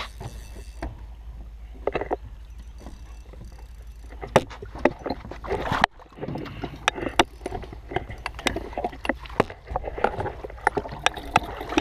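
Scattered knocks and clicks of an aluminium landing-net pole being handled against a fibreglass boat's bow, over a low steady rumble. Near the end the net is dipped into the water.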